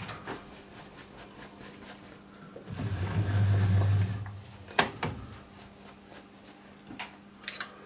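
Light clicks and taps of small metal parts and tools being handled at a workbench, with a low steady hum lasting about a second and a half near the middle.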